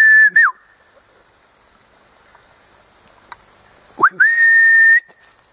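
A hunter's loud, high whistle to the hounds, held steady on one pitch after a quick upward slide: one ends about half a second in, and another starts about four seconds in and lasts about a second.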